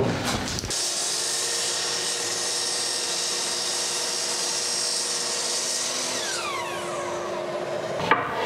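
Miter saw starting up and running steadily as it trims the end off a stained wooden stair tread, then its motor winding down with a falling whine over about a second and a half near the end.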